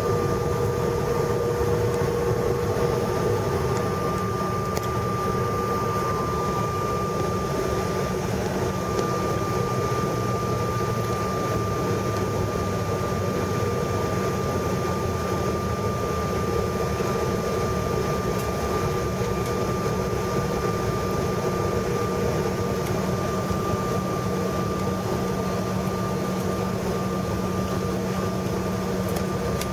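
Inside the cabin of a regional jet taxiing, the engines run at idle with a steady hum and a thin, constant whine over the rush of cabin air.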